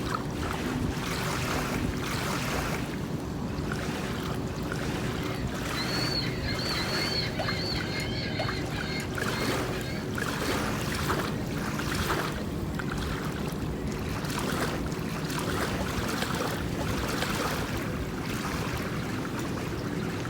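A boat's engine running steadily under rushing water and wind on the microphone. From about six to ten seconds in, a high-pitched wavering tone sounds over it.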